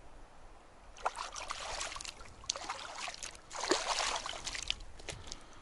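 Water splashing and sloshing close to the microphone in two crackly bursts, the first starting about a second in and the second, louder one after a brief gap.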